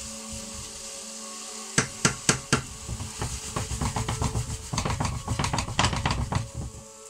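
Spatula knocking and scraping in a frying pan as a potato, onion and mince samosa filling is stirred. About two seconds in come four sharp knocks, then a quick run of scrapes and taps for about three and a half seconds, over a faint hiss and a steady hum.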